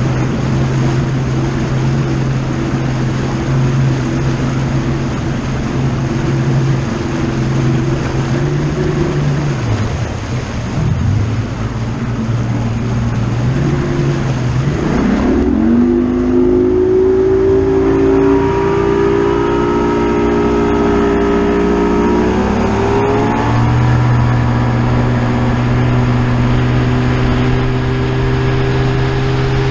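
Bass boat outboard motor running under way. Its pitch dips briefly around ten seconds in, rises sharply about fifteen seconds in as the throttle is opened, climbs again a little later, then holds steady.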